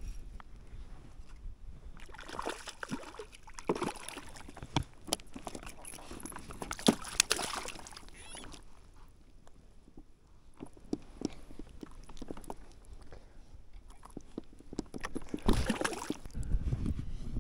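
Water sloshing and splashing at the side of a fishing kayak, with many short clicks and knocks, while a hooked trout is being played. A louder rush of noise comes near the end.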